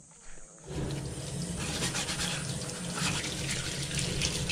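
Tap water running into a stainless steel sink while a small cooking pot is rinsed under it by hand, starting just under a second in.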